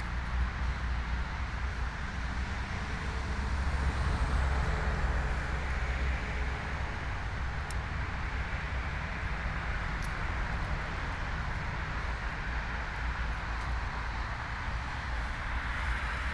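Steady outdoor background noise: a low rumble under an even hiss, with a couple of faint clicks.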